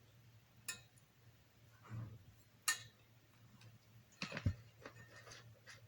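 Kitchen utensils and containers being handled: a few separate sharp clicks and knocks, with a small cluster of them about two-thirds of the way in, over a faint steady low hum.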